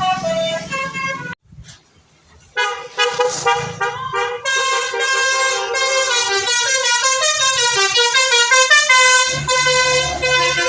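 Basuri telolet bus horn playing a long melody of overlapping trumpet-like notes that step up and down in pitch. It breaks off about a second in, then starts again a second later and plays on.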